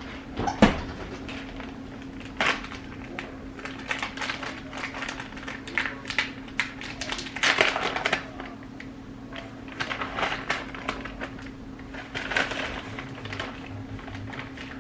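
Irregular kitchen-counter handling noises as burritos are put together: light taps, clicks and rustles coming and going, over a steady low hum.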